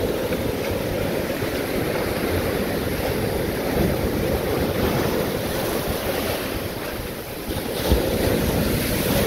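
Ocean surf breaking and washing in around the shallows, with wind buffeting the microphone. A brief low thump comes about eight seconds in.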